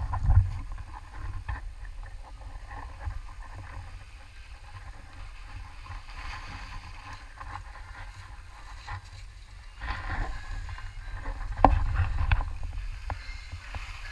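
Skis sliding and scraping over packed snow, with wind buffeting the microphone as a low rumble; it gets louder about ten and twelve seconds in, with a few sharp clicks.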